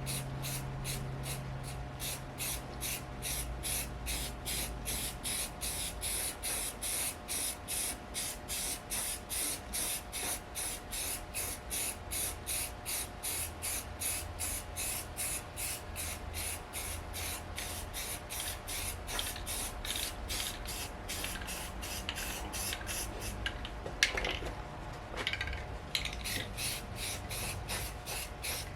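Rhythmic hissing rasp strokes, a little over two a second, like steady back-and-forth scrubbing or rubbing, with a low hum that fades out about five seconds in and a single sharp knock near the end.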